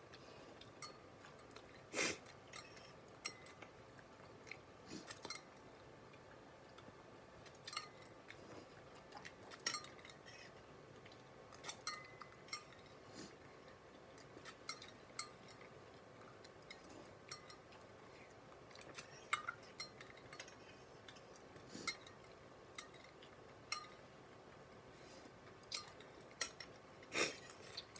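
Quiet eating: chopsticks tapping and scraping a bowl, with chewing, heard as scattered soft clicks and clinks. The loudest taps come about two seconds in and near the end.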